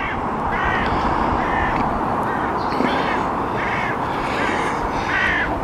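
Crows cawing, a series of short calls about one a second, over a steady rush of wind on the microphone.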